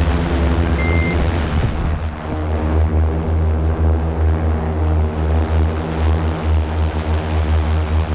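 Multirotor drone's motors and propellers humming loudly and steadily in a hover. About two seconds in, a high hiss fades and the hum settles into clearer steady tones.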